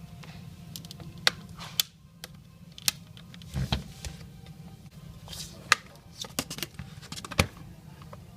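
Scattered sharp plastic clicks and snaps, a dozen or so at uneven intervals, from the plastic parts of a Samsung Galaxy Tab 4 tablet being pried and handled during disassembly.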